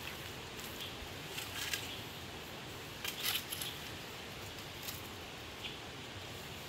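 Dry bamboo sticks clicking and scraping against each other as they are handled and bound side by side into a mat, in short bursts about one and a half and three seconds in, the second the loudest, over a steady background hiss.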